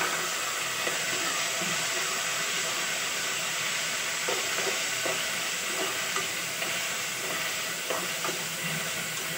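Chopped tomatoes and onions sizzling steadily in hot oil in an aluminium pressure cooker, stirred with a metal spatula that clicks and scrapes against the pot now and then.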